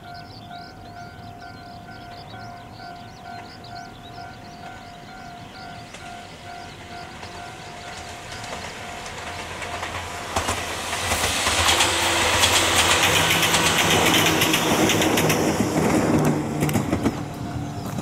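Ohmi Railway 822F, an 800-series two-car electric train, approaches, passes loudest for several seconds with a clatter of wheels over rail joints and a motor hum, then fades. Before it arrives, a bell-like ding repeats about twice a second, with a few short bird chirps.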